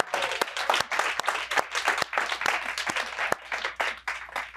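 Audience applauding, dense clapping that thins out to a few scattered claps near the end.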